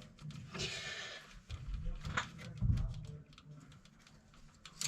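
Handling noises from wiring work: rustling, with a sharp click about two seconds in and a low thump just after.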